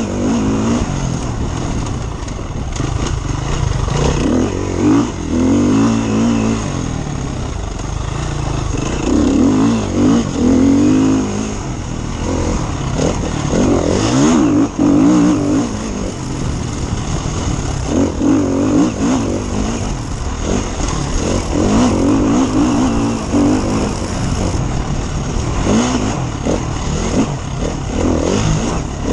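KTM enduro dirt bike engine, heard close up on board at racing speed, revving up and down again and again as the throttle is opened and closed through the gears.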